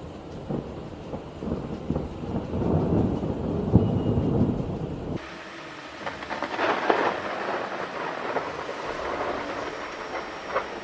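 Thunder rumbling and crackling over steady rain. A deep rumble with a sharp crack about four seconds in stops abruptly a little after five seconds, and a higher, crackling peal follows, loudest around seven seconds.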